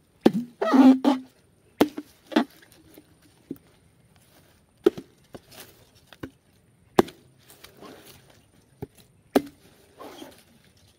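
A young green coconut being chopped open with a blade: about ten sharp, irregularly spaced blows into the husk and shell, with a quick cluster of strikes about a second in, cutting it open to get at the soft flesh.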